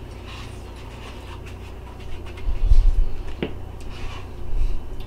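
Eating sounds from spoons and bowls as chili is tasted: a spoon clicks against a bowl once, about three and a half seconds in, with low dull thumps around it, over a steady low hum.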